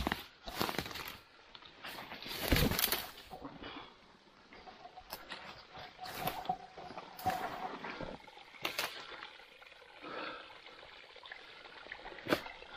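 Footsteps and the rustle and snap of twigs and undergrowth as someone picks their way down a steep, overgrown bank into a stream bed, in irregular crunches and brushes. The loudest comes about two and a half seconds in.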